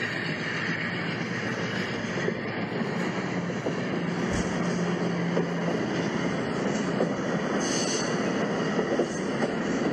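LEGO train rolling past: the steady whir of its electric motor and the rattle of plastic wheels on the plastic track. A low hum joins in for a couple of seconds partway through, with a single click about four seconds in.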